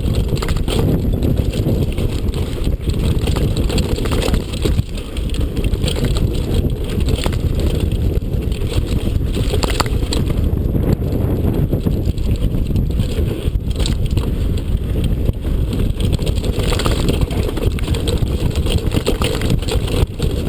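Wind buffeting a bike-mounted camera's microphone, over the rattle and chatter of a Cannondale Perp mountain bike running fast down a rough dirt and gravel trail, with frequent sharp clacks as it hits bumps.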